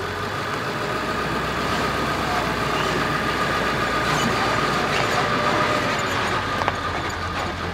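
Old diesel Ford F-350 pickup truck running, a steady engine-and-road drone with one sharp click near the end.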